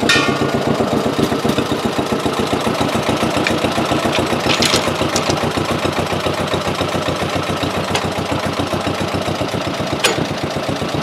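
An engine running at a steady idle with an even, rapid pulse, powering the chain pull that turns a pipe wrench to unscrew a stuck piston rod. A sharp metallic clank rings out at the start, and a few fainter clicks come later.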